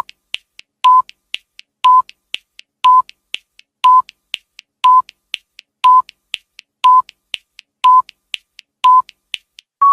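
Electronic countdown timer beeping: ten short, steady high beeps, one each second, with faint ticks about four times a second between them. A longer final beep begins right at the end, marking zero.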